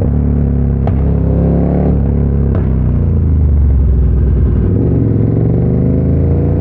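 KTM 1290 Super Duke R's V-twin engine running through an Austin Racing V3 150 mm exhaust while riding, the note holding fairly steady with two short sharp clicks early on, then dipping and climbing again after about five seconds as the bike accelerates.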